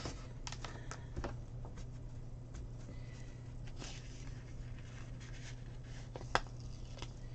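Faint rustles and light clicks of small handling noises at a desk, over a steady low hum, with one sharper click about six seconds in.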